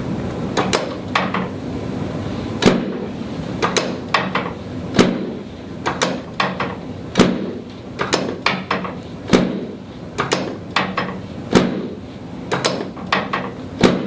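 A series of sharp knocks and thumps from a chiropractic adjusting table, roughly one a second and sometimes in quick pairs or triples, over a steady low hum.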